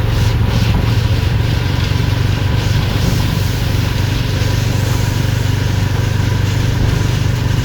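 Steady rain hiss with a strong, steady low hum underneath.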